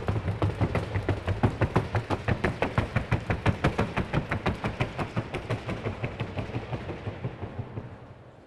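Colombian Paso mare's hooves striking a wooden sounding board in the trocha, a rapid, even run of sharp knocks that fades out near the end.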